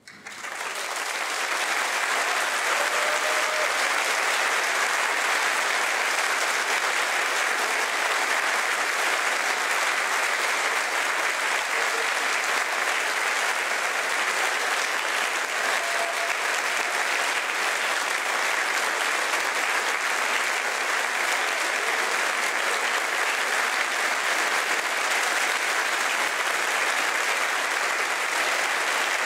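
Large audience applauding, starting from silence about a second in and quickly swelling to steady, sustained clapping.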